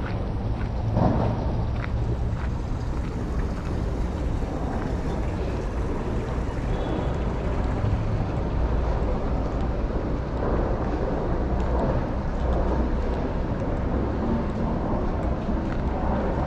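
Outdoor city street noise: a steady low rumble of traffic and wind on the microphone, with no clear single event standing out.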